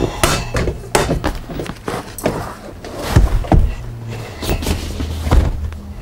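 A sleeper sofa's metal fold-out frame and cushions being folded back into a couch: an irregular run of clunks, knocks and thumps, the heaviest about three seconds in.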